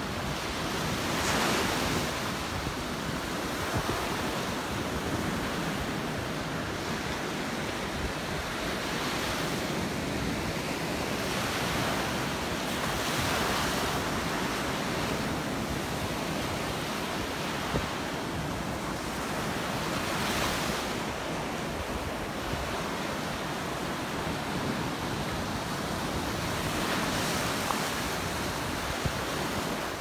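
Gulf of Mexico surf washing onto a sandy beach: a steady hiss of water with louder surges every several seconds as waves break, and some wind on the microphone.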